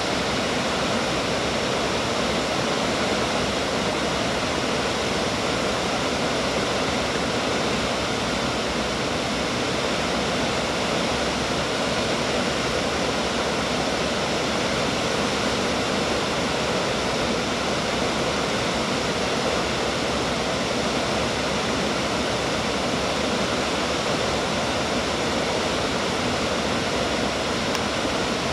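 Water pouring over a low dam spillway and rushing over rocks in a shallow river: a steady, even rush of water that does not change.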